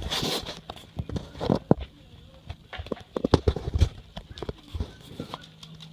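A dog sneezing several times. A strong sneeze comes right at the start, another about a second and a half in, and a quick cluster of short sharp sneezes about three seconds in.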